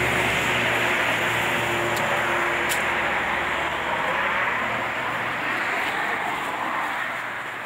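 Steady rushing noise of a passing motor vehicle, slowly fading away near the end.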